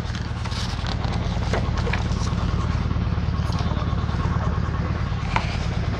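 High-frequency chest wall oscillation airway-clearance vest running: its air-pulse generator drives a steady, rapid low pulsing rumble through the hoses into the vest during a cystic fibrosis treatment.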